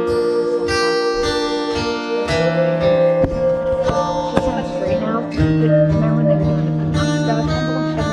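Live acoustic guitar music, strummed and plucked, with long held notes over a steady bass line.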